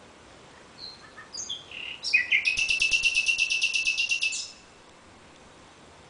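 Nightingale singing one song phrase: a few separate high notes, then a loud, fast trill of about ten repeated notes a second that stops short about halfway through.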